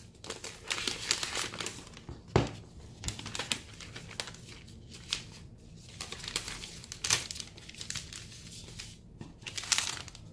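Crinkling and rustling of a thin clear plastic protective wrap as it is pulled off a new iPad and handled, with a single knock about two seconds in.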